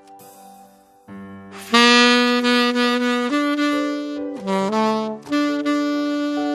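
Saxophone playing a slow melody over a backing track. After a brief lull, the accompaniment comes in and a loud held note starts about two seconds in, followed by a few changes of note.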